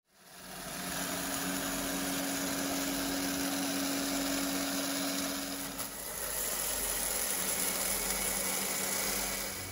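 Electric round-knife cutting machine running, a steady motor hum whose low tone changes about six seconds in.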